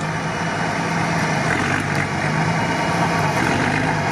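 Off-road 4x4 engine idling steadily while a winch cable is being taken up, the cable not yet pulled tight.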